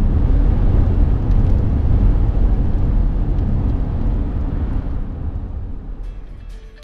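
A car driving at highway speed, heard from inside the cabin: a steady low rumble of road and engine noise that fades out near the end.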